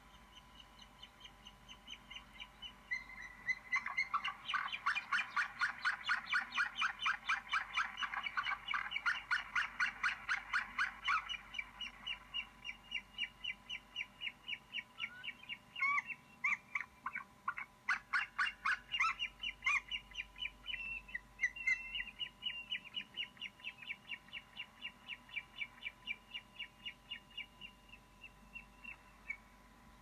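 Eagle calling at its nest: long strings of rapid, high-pitched chattering notes, several a second, loudest in the first third and thinning out toward the end.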